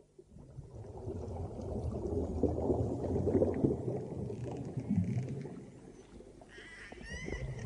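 Low rumbling churn of water and machinery, the sound laid under a surfaced submarine running through the sea. It fades up after a sudden cut, dips about six seconds in, and near the end a few short rising whistles sound over it.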